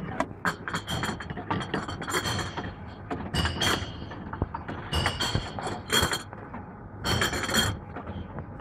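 Drink containers clinking and knocking as they are fed one after another into a reverse vending machine's intake and carried in on its conveyor: a run of irregular sharp clinks and knocks, some with a short ring.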